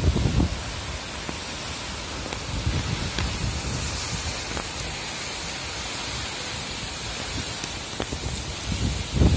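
Heavy tropical-cyclone rain pouring down in a steady hiss, with gusts of wind buffeting the microphone at the start and again near the end.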